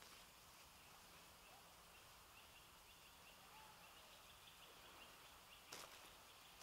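Near silence of woodland, with faint distant bird chirps through the middle and a brief rustle near the end.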